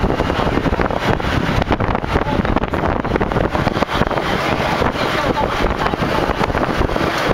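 Steady road and wind noise of a moving vehicle, with wind buffeting the microphone.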